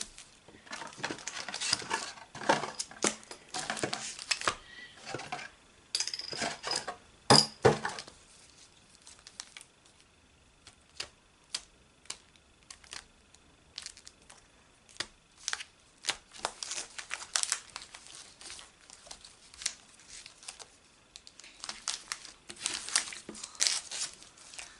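Foil booster pack wrappers crinkling and rustling as they are handled and shuffled, busy for the first several seconds, then sparse crinkles and light taps, picking up again near the end.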